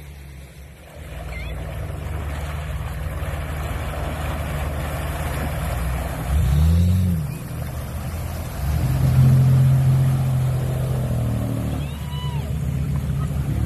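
Toyota FJ Cruiser's engine running as it wades through deep water, with water churning and splashing around the body. The engine revs up and back down once about six seconds in, then runs louder for a couple of seconds as the SUV pulls out of the water.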